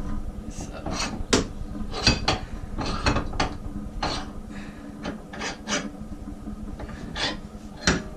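Fine-cut hand file scraping across the edge of a steel lawn mower blade held in a vise: a dozen or so short strokes at an uneven pace, with a pause about six seconds in.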